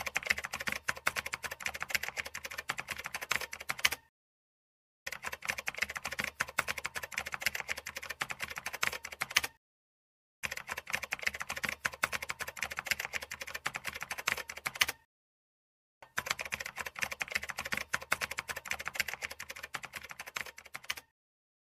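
Typing sound effect: rapid key clicks in four runs of about four to five seconds each, separated by gaps of about a second of silence.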